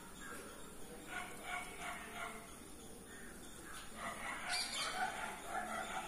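Faint dog barking, a run of short repeated barks, with a brief noise about four and a half seconds in.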